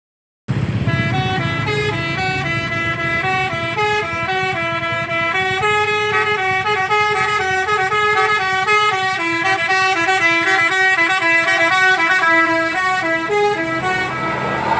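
Telolet musical bus horn playing a quick tune of changing notes over the bus engine's low running, starting about half a second in. The tune stops shortly before the end.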